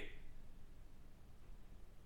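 Very quiet room tone with a faint low hum, in a pause between speech.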